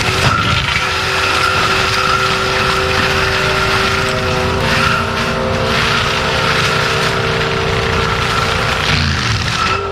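ASV RT-120F compact track loader running a TMC Cancela forestry mulcher: a steady high whine from the spinning mulcher drum over the machine's engine. Near the end a low tone sweeps briefly downward.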